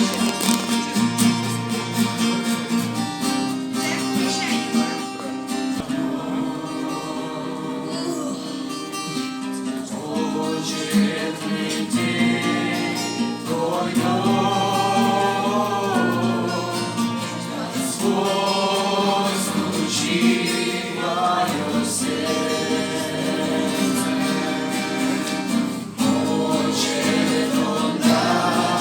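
Background music: a song with several voices singing over guitar accompaniment.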